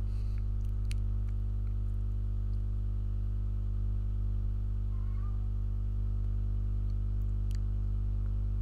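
A steady low hum, unchanging throughout, with a couple of faint ticks.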